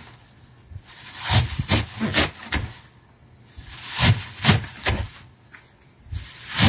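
Kitchen knife chopping a bunch of garlic chives on a plastic cutting board: crisp strokes about two a second, four in a row, a pause, three more, then another few near the end.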